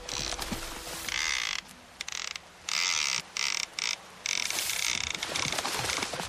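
Rapid mechanical ratcheting, in several bursts that cut in and out abruptly.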